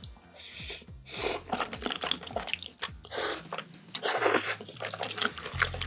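Thick, sauce-coated jajangmyeon noodles slurped up in several long sucking pulls, with wet chewing and lip-smacking clicks between them.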